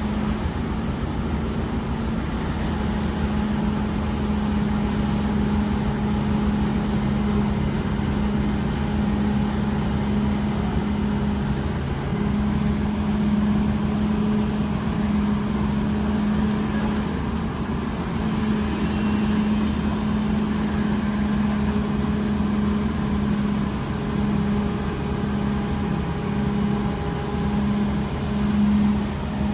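Excavator diesel engine running steadily at a constant pitch.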